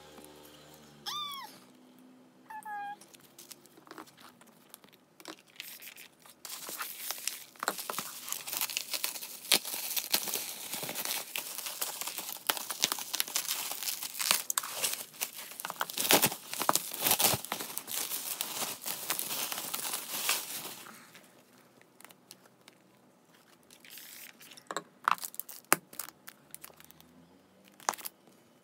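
Plastic shrink wrap being slit with a small cutter and torn off a boxed album set: dense crinkling and tearing, thick with sharp crackles, from about seven seconds in until about twenty-one seconds. Before and after it come only scattered rustles and taps of handling the plastic packaging.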